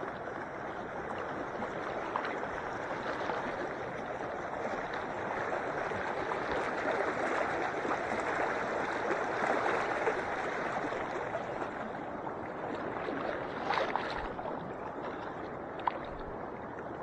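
Lake water lapping and gurgling at the shore close to the microphone, a steady wash that swells a little partway through. There are two brief sharp clicks near the end.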